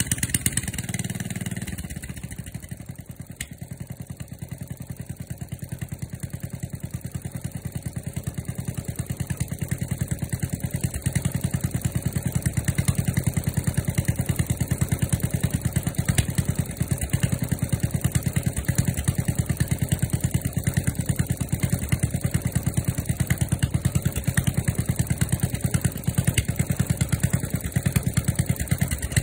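Small engine of a walk-behind two-wheel tractor running just after a cold start, in a fast, even beat. It runs higher for the first couple of seconds, drops a few seconds in, then gradually picks back up and settles into a steady run.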